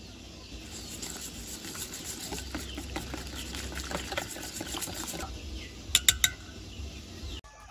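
Wire whisk beating a flour-and-water batter in a stainless steel bowl: a fast, irregular run of wet clicks and scrapes, then three sharp taps about six seconds in.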